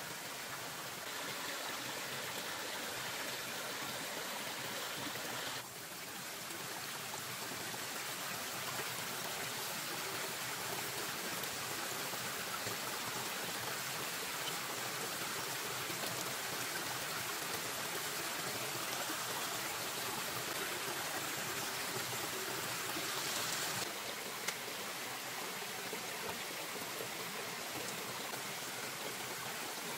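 Steady rush of running stream water. Its level and tone shift abruptly about six seconds in and again at about twenty-four seconds.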